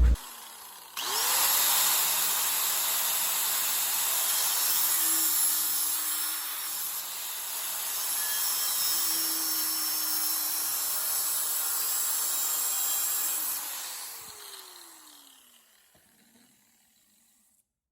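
A cutoff wheel cutting a split into a sheet-metal cowl patch panel. Its pitch rises as it spins up about a second in and holds steady under a hiss of cutting, then falls as it winds down near the end.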